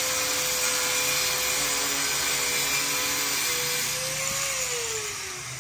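Handheld electric angle grinder running, its cutting disc grinding through a black mounting strip of an aftermarket car grille that is too thick to fit the bumper. The motor's whine holds steady, lifts slightly, then falls in pitch and fades near the end as the grinder winds down.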